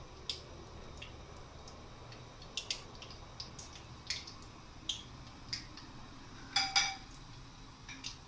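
Epok-epok (curry puffs) deep-frying in hot oil: a soft, steady sizzle with scattered sharp pops and crackles, and two louder clicks in quick succession about six and a half seconds in.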